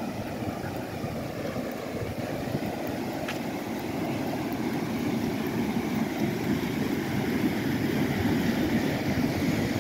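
Wind buffeting an open microphone: a fluttering low rumble that grows a little louder toward the end.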